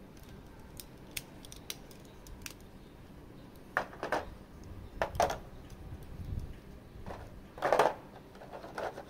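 Handling noises from an action figure and its packaging being unboxed: a few light clicks, then several short scraping rustles about four, five and eight seconds in, the last the loudest.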